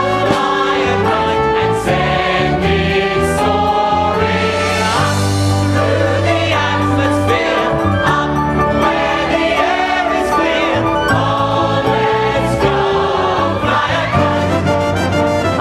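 A song with a choir singing over instrumental accompaniment.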